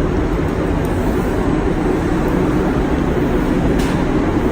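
Steady, loud mechanical drone of paint-shop air equipment, such as a spray booth's extraction fan or an air compressor, holding even throughout.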